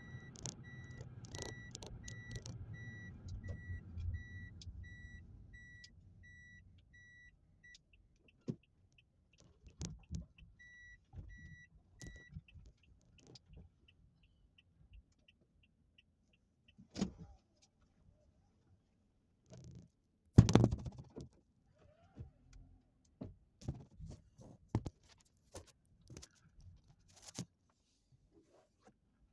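Inside a vehicle's cabin: engine and road noise dies away over the first few seconds as the vehicle comes to a stop, while a warning chime beeps about twice a second, pauses, and beeps again. Then a faint fast ticking and scattered clicks and knocks, with one loud thump about twenty seconds in.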